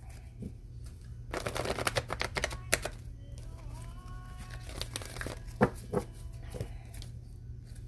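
Tarot cards being shuffled: a fast crackly flurry of card edges for a couple of seconds, followed by a few sharp taps of the cards about two-thirds of the way in.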